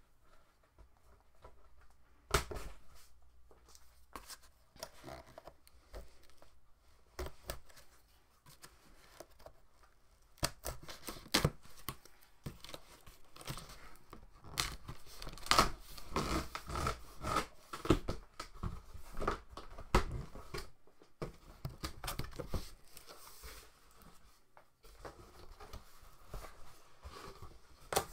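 Packing tape on a large cardboard box being slit and torn with a utility knife, then the cardboard flaps pulled open: a run of irregular scrapes, rips and rustles.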